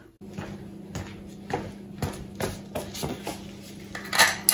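Hard plastic 3D-printed spacers being handled and knocked together: a string of light clicks and knocks about two a second, with louder clinking near the end. A faint steady low hum sits underneath.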